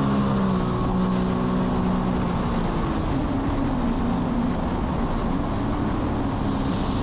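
Jet ski engine running at a steady high speed, then easing off about three seconds in, leaving mostly the rushing of water and wind.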